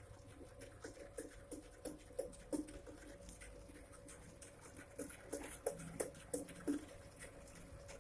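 DIY pottery wheel's motor and pulley-gearbox speed reducer running, a steady faint hum under irregular light knocks and clatter from the drive.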